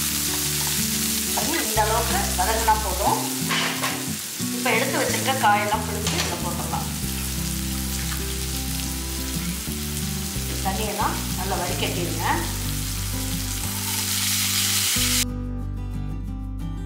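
Sliced onions and curry leaves sizzling in oil in a nonstick kadai, with a silicone spatula stirring and scraping them in a few louder spells. The sizzle cuts off suddenly near the end, leaving soft background music.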